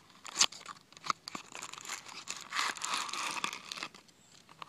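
Product packaging being handled: a few sharp clicks and taps, then crinkling for about a second and a half from around two and a half seconds in.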